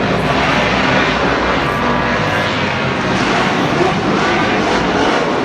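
Historic motorcycle engines running hard, several engine notes overlapping, with the pitch gliding up and down as they rev.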